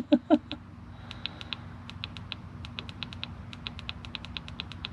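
Rapid run of short clicks from a car-radio button being pressed over and over to step the tuning one frequency at a time, about five a second, over a steady low hum.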